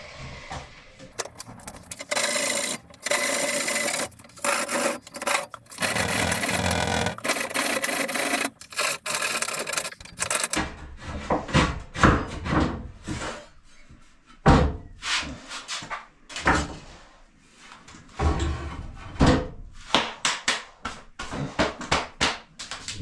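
Angle grinder cutting into a polished stone benchtop slab in stop-start runs: a long, near-continuous cut through the first half, then shorter, choppier passes.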